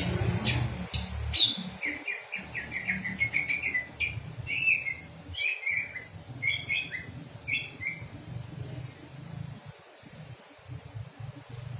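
Small songbird chirping in quick series of short, high notes, including a fast run of notes about two seconds in and scattered groups after it, over a low steady rumble.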